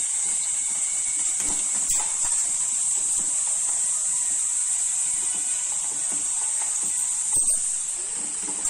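Bonda batter balls deep-frying in hot oil in a kadai: a steady, high sizzle of oil bubbling around the fritters as they fry to golden brown.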